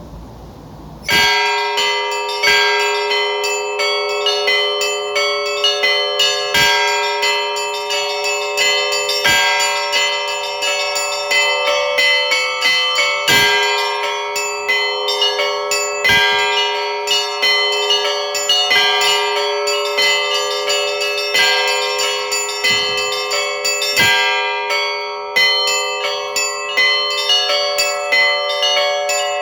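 Russian Orthodox church bells rung by a bell ringer, starting about a second in. A deep bell is struck every few seconds under quick, rhythmic patterns on several smaller, higher bells, and each stroke rings on.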